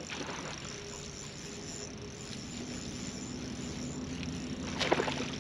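Steady high-pitched drone of a summer insect chorus. A faint steady low hum joins about halfway through, and a short loud sound comes just before the end.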